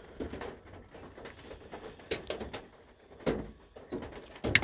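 Rain and small hail striking the van's metal roof and windshield in irregular taps, a few harder hits standing out, the loudest about three and a half and four and a half seconds in.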